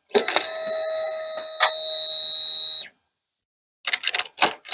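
Suzuki Hayabusa's electric fuel pump priming at key-on: a steady high buzzing whine for just under three seconds that then cuts off. A few short clicks follow near the end.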